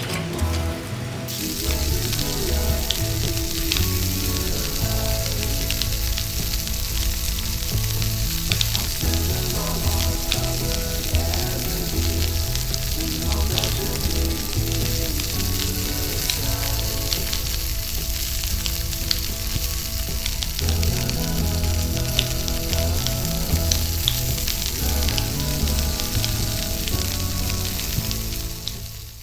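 Scallops in their shells sizzling and crackling on a barbecue grill as they cook in their own juices, the sizzle coming in about a second in. Background music plays underneath.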